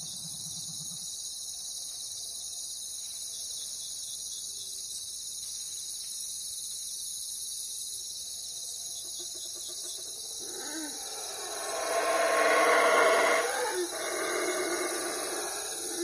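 Night insect chorus: a steady high-pitched cricket trill. An animal call made of several pitched tones comes in about ten seconds in and is loudest a couple of seconds later.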